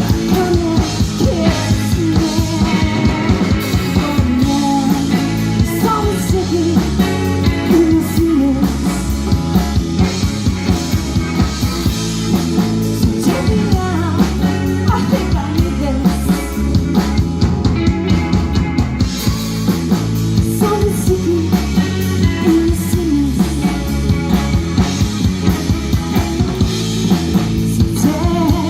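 Rock band playing live: a drum kit keeping a steady, busy beat under guitar, with singing over it.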